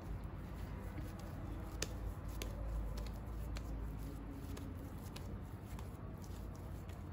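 Hands folding and shaping a ball of soft yeast dough: faint sticky squishing with scattered small clicks and ticks over a low, steady room rumble.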